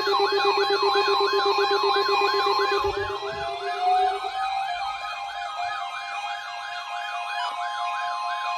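Weather radio warning alarm set off by the weekly test, with several alert receivers sounding together: overlapping siren-like wails rising and falling about three times a second over steady alarm tones. A low pulsing tone stops about four seconds in.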